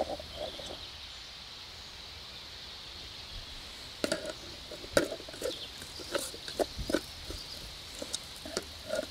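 Onions, garlic and nettle sizzling in a metal camping pot over a wood-gas stove, with a wooden stick stirring and scraping against the pot in irregular knocks from about four seconds in.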